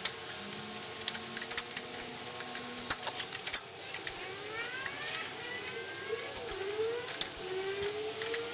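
Irregular metallic clinks and rattles of a steel combination wrench on the bolt and locknut of a three-point hitch sway-bar link as the nut is tightened. A faint wavering whistle-like sound runs underneath from about the middle on.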